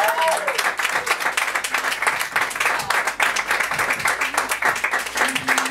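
Audience clapping and applauding for a performer, with a voice or two calling out at the start.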